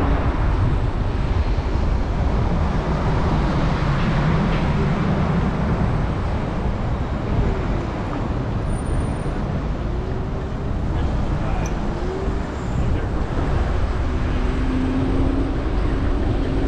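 Busy city street traffic: a steady rumble of engines and road noise from the surrounding cars and buses, with a few short rising and falling engine tones midway and a held engine tone near the end.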